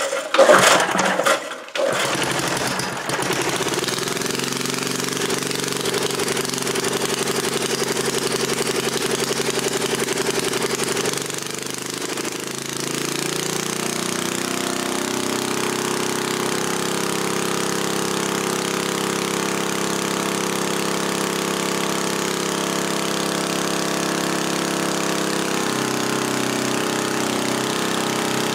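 1977 Briggs & Stratton Model 8 3 hp engine with a freshly fitted muffler being started: a couple of loud starting pulls, then it catches about two seconds in and runs fast. About eleven seconds in its speed drops, and it settles into a steady run.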